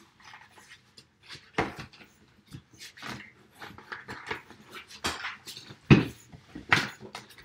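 A puppy sniffing and breathing close by in irregular bursts, the loudest about six seconds in, with sketchbook pages being handled and turned.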